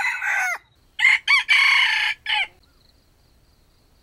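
Junglefowl rooster crowing. One crow trails off with a falling note about half a second in, and a second crow of about a second and a half follows, also ending in a falling note.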